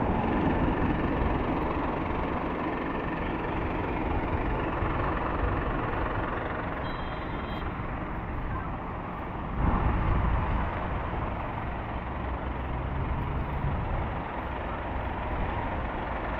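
Fire engine idling, a steady engine rumble, with a short high beep about seven seconds in and a louder low surge about ten seconds in.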